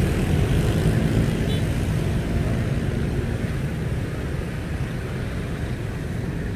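Steady low rumble of street traffic, with engines humming under a continuous noise, easing off a little in the second half.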